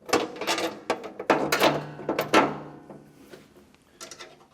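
A 1/2-inch wrench working the nuts off the plow bolts that hold a plastic (UHMW) auger slide, in several short bursts of metal clicking and scraping, over a faint steady hum.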